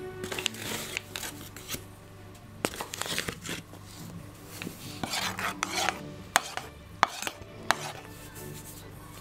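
Paper flour bag rustling as flour is poured into an enamel bowl, in several bursts. Near the end come three sharp taps, an egg knocked against the bowl rim to crack it.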